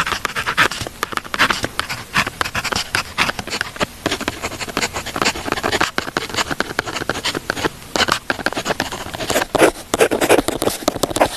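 Pen writing on paper: a continuous run of quick scratches and small ticks of the tip, with a lower, rougher scratching stretch near the end.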